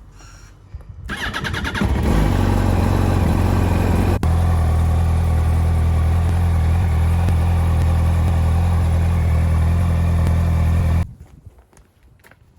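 2007 Yamaha YZF-R1's inline-four engine cranked by the starter on its new lithium-ion battery, catching after about a second and idling steadily, then switched off abruptly near the end.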